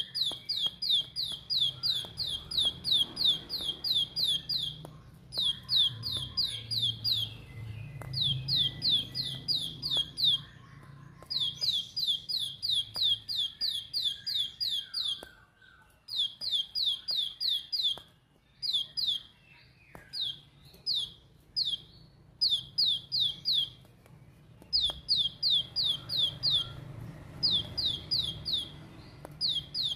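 Plain prinia (ciblek sawah) singing its rapid 'tembakan' song: runs of sharp, high notes, about six a second, each falling in pitch. The runs come in bursts of a few seconds with short pauses between.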